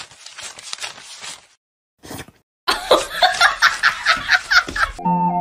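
A voice rapidly repeating a short phrase breaks off, and after a brief silence comes a stretch of loud laughter in quick repeated bursts. Flute music starts just before the end.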